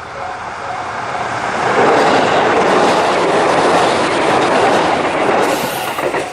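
A train passing over a level crossing: the noise of its wheels and cars builds over the first two seconds and stays loud, with a brief hiss near the end before it stops abruptly. The crossing's alarm bell is faintly heard at the start, then drowned out.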